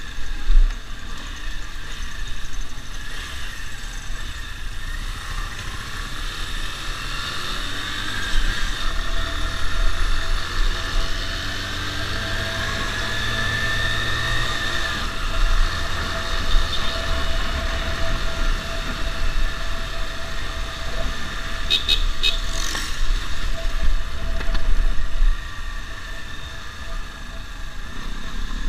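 Motorcycle riding along a town street: wind buffeting the microphone over the bike's running engine and passing traffic.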